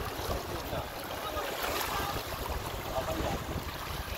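Seawater lapping and washing against rocks, with wind buffeting the microphone.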